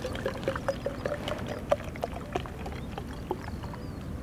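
Water being poured from a large plastic water bottle into a smaller plastic bottle, a running trickle broken by many irregular small splashes and clicks as the bottle fills.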